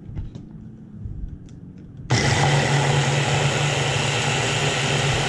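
Immersion blender running on its chopper attachment, chopping strawberries: a loud, steady motor whir with a constant hum that starts abruptly about two seconds in. Before it come a few light clicks as the motor unit is fitted onto the chopper bowl's lid.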